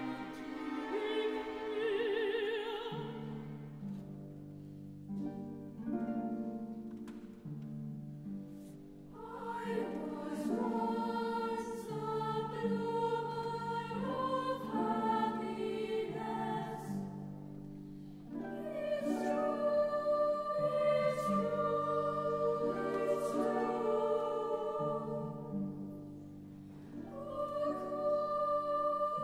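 Live orchestral music with harp, and a boys' choir singing long, wavering held notes; the music thins out briefly twice before swelling again.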